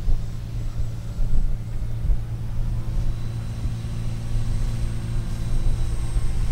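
Faint whine of the small electric motor of a foam RC Corsair flying overhead, growing a little stronger about halfway in, over a steady low rumble.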